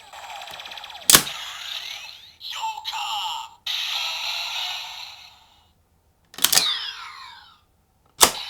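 CSM Lostdriver transformation belt playing its Kamen Rider Joker henshin sound effects. A pulsing electronic standby loop is broken by sharp hits about a second in, around six and a half seconds and near the end, each followed by electronic whooshes and pitch sweeps.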